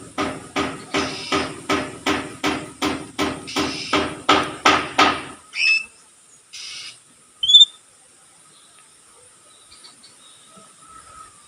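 A regular series of sharp knocks, about three a second, that stops about five seconds in. It is followed by a few short whistled notes from an oriental magpie-robin.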